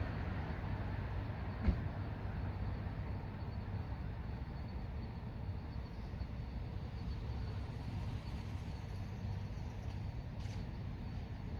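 Steady rumble of road traffic at night, with one brief click a little under two seconds in.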